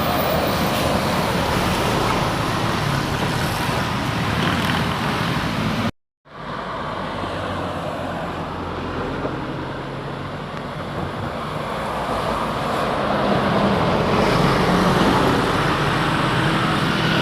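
Road traffic passing by, with engine and tyre noise, broken by a brief silent gap about six seconds in. The sound swells again near the end as a vehicle draws close. No air-horn melody is heard.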